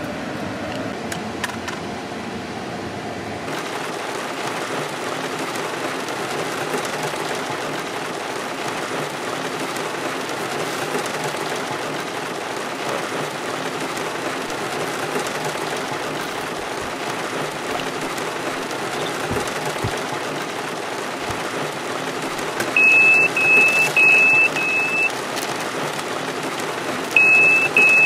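Carbon monoxide alarm beeping: four short high-pitched beeps about 23 s in, and another run of beeps starting near the end. It is sounding because carbon monoxide has built up inside the closed car. A steady hiss of heavy rain on the car runs underneath.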